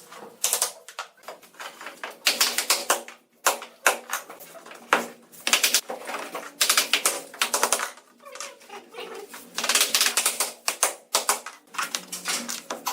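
Rapid clattering of hard clicks and taps, in quick runs about half a second to a second long with short pauses between them.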